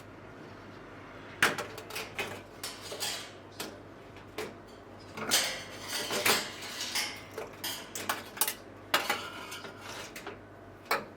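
Irregular metallic clicks, clinks and short scraping rattles as the wiring is pulled from its clip and the old oven thermostat is worked free.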